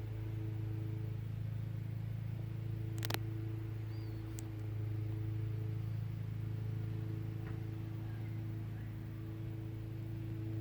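Steady low mechanical hum, with one sharp click about three seconds in.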